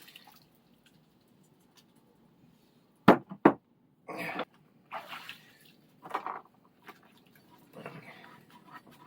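Two sharp, loud knocks about half a second apart, a little over three seconds in, typical of hard objects set down or struck on a workbench. A few shorter, softer knocking and handling noises follow.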